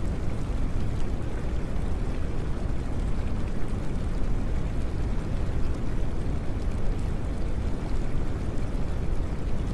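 Steady low rushing noise with no tone, beat or pause: the masking sound laid over a subliminal affirmation track.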